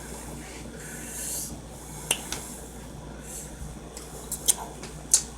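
Close-miked chewing and mouth smacking while eating sushi, with several sharp, wet clicks.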